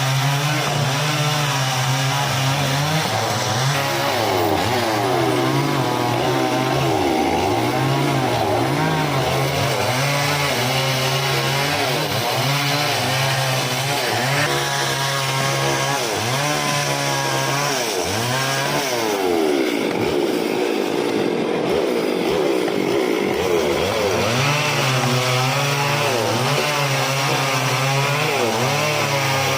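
Chainsaw engine running throughout, its speed repeatedly rising and falling as it revs and cuts into wood.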